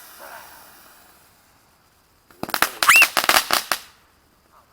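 Firecrackers going off: after a near-silent pause, a rapid string of sharp cracks about two and a half seconds in, lasting a little over a second.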